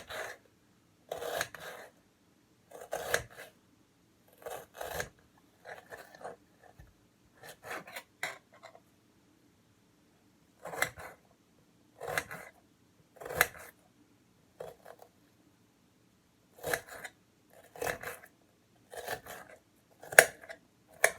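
Kitchen knife cutting an onion into small pieces, one short cut about every second, with a couple of brief pauses.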